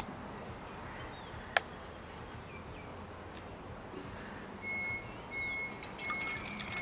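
Outdoor ambience with birds chirping over a steady hiss. There is one sharp click about one and a half seconds in, and from just past the middle a high whistled note repeats in half-second pieces.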